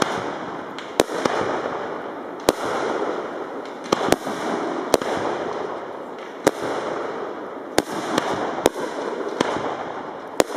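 Fireworks display: about ten sharp bangs of bursting shells at uneven intervals, over a steady hiss and crackle of rising comets and falling star effects.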